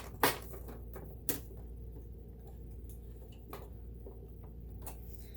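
A few sharp clicks and taps from hands working the plastic parts and controls of a sewing and embroidery machine. The loudest comes about a quarter second in and another about a second later, over a steady low hum.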